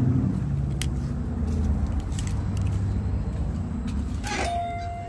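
A car engine running at idle, a steady low hum. About four seconds in there is a short noise as a glass shop door is pulled open.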